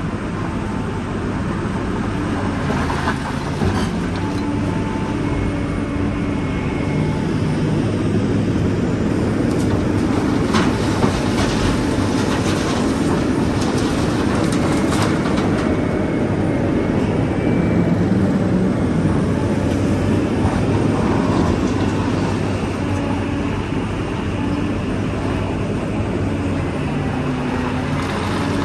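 Heavy diesel earthmoving machinery running steadily under load, its engine note shifting up and down, with a few sharp knocks about halfway through.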